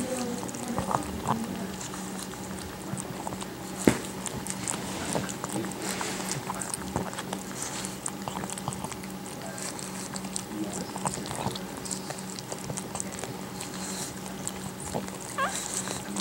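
Mother pug licking and nosing her newborn puppies: irregular wet licking and smacking clicks, with one sharper click about four seconds in, and a few brief faint squeaks from the puppies, the last one rising near the end.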